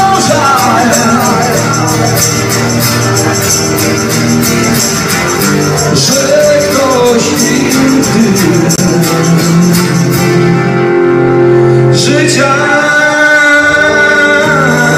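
Live acoustic band: a male voice singing over two strummed acoustic guitars, with hand percussion keeping a fast shaking rhythm. The percussion drops out about ten seconds in and comes back roughly two seconds later.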